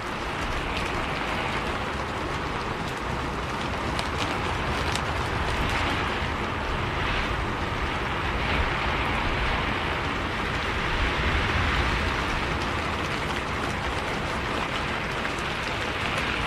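Rain falling on a moving bus over the steady low rumble of the bus on the road, with scattered faint drop ticks.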